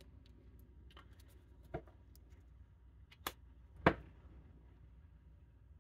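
Tarot cards being handled and set down on a wooden table: four light, sharp taps, the loudest about four seconds in, over a faint low hum.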